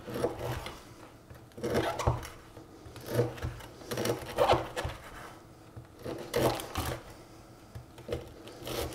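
Chef's knife sawing and chopping through a stale, hard-crusted baguette on a bamboo cutting board, in a run of separate, irregular strokes with the blade knocking on the wood.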